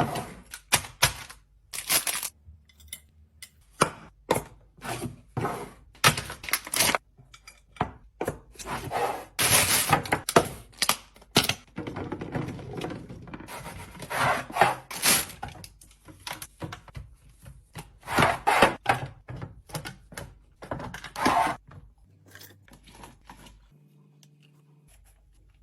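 Items being handled while restocking a fridge: irregular clacks and thunks of plastic containers and packaging being set down, with longer rustling stretches in the middle.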